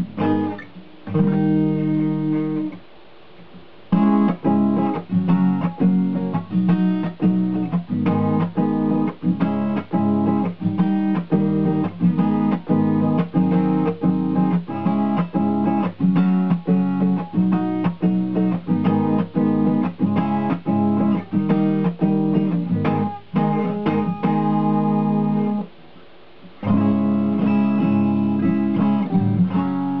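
Acoustic guitar strummed in a steady chord rhythm, with a short break about three seconds in and another near the end.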